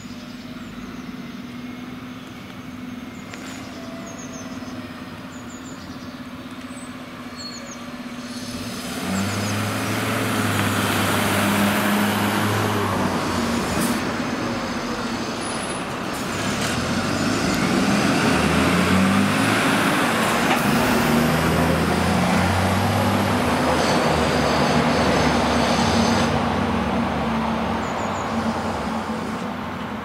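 Fire vehicles driving past one after another, the second an Iveco Magirus fire engine with a diesel engine; the sound swells loud about a third of the way in, dips briefly, then swells again as the truck pulls past and fades near the end.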